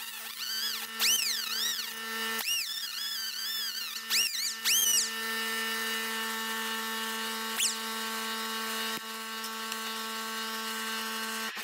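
Mini air die grinder with a cutoff disc running and cutting into a nail. Its high whine repeatedly dips and climbs back in pitch during the first five seconds as the disc bogs under load, then runs steadily. It cuts poorly, which the owner puts down to the disc being too thick.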